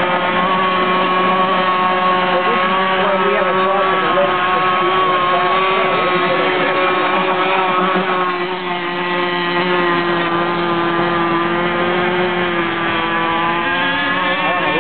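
Cracker Box runabout's engine running steadily at a high, even pitch out on the water, easing off briefly about halfway through before picking back up.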